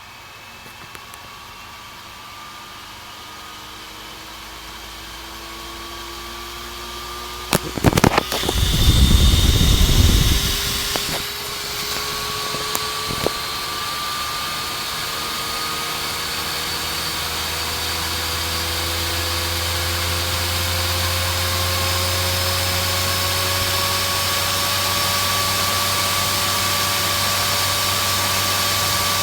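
Dell GX280 desktop's cooling fan ramping up: a whine that slowly rises in pitch and keeps getting louder. The fan revs on because the machine fails to boot, which the owner traced to too little heatsink pressure on the left side of the processor. About eight seconds in, a few knocks and a loud low rumble last about three seconds.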